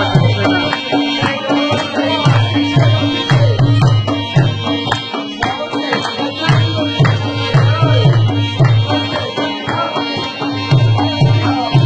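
Music for the Pashto attan dance: a quick, steady drum rhythm, with a sustained melody instrument held over it.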